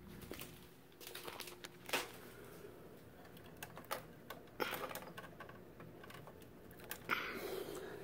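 Scattered light clicks and knocks of a hand fumbling at the plastic front panel of a window air conditioner, trying to open its control door, with a short rustle about seven seconds in.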